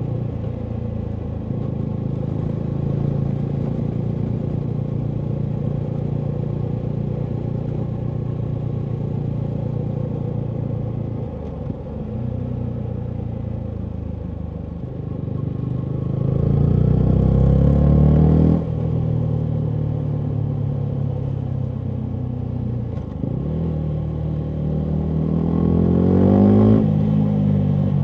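Yamaha MT125's 125 cc single-cylinder four-stroke engine through a full Akrapovic exhaust, running along at steady revs. It revs up twice, the pitch rising, once about two-thirds in and again near the end, and each time the note falls away suddenly.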